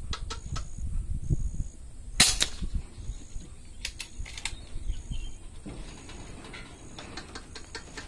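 A single air rifle shot, a sharp crack about two seconds in, followed by a few fainter clicks, over a low rumble of wind and handling noise.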